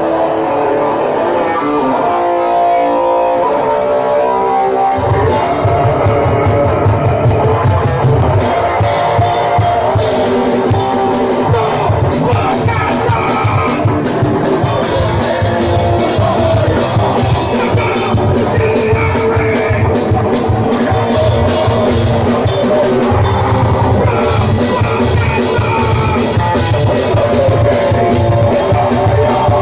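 Rock music with electric guitar and a drum kit played along to the track. The low end drops away for a few seconds, then the full band with kick drum and bass comes back in about five seconds in.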